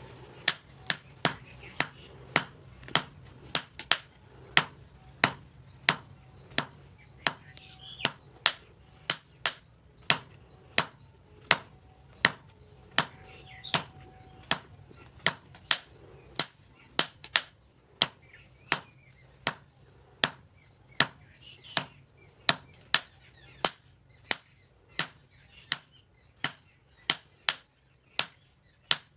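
Blacksmith's hand hammer striking a steel meat-cleaver blank on an anvil in a steady rhythm, about two blows a second. Each blow has a short, high metallic ring.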